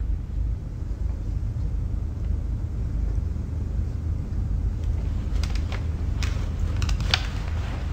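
Low steady rumble of a film soundtrack's ambient room tone. From about five and a half seconds in, a few faint short clicks and rustles, the clearest one near the end.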